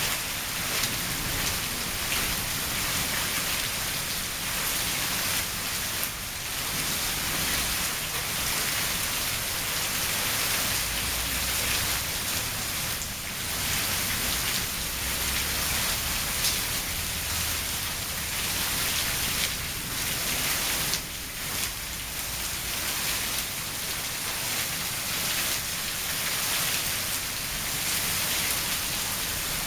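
Heavy rain pouring down steadily in a windy storm, with scattered sharper drop hits.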